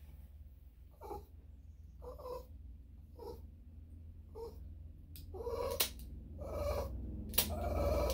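An elderly Bichon/Shih-Tzu dog whimpering in short, repeated whines while her paw is held for nail trimming, the whines growing louder and longer in the second half. A few sharp snips of the nail clippers sound among them.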